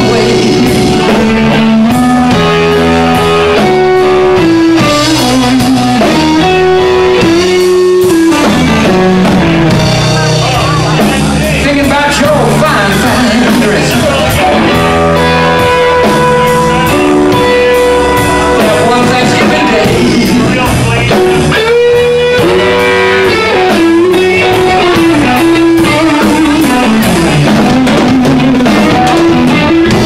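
Live blues band playing loud amplified electric guitars over a drum kit, with sustained, bending melodic lines over a steady bass.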